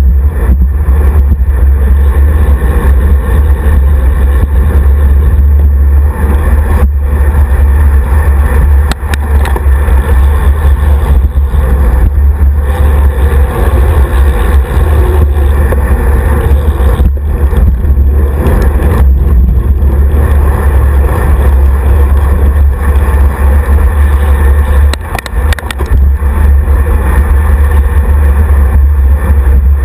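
Heavy wind rush and road rumble on the microphone of a handlebar-mounted action camera on a road bike riding at speed in a group. It is a steady, loud low rumble that eases briefly twice.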